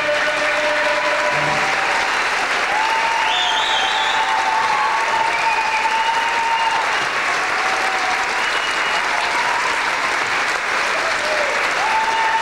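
Audience applauding steadily, with a few long held tones rising out of the clapping now and then.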